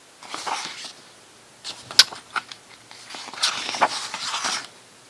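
Paper rustling as thick photo-book pages are handled and turned, in two bursts with a sharp tap of the page or cover about two seconds in.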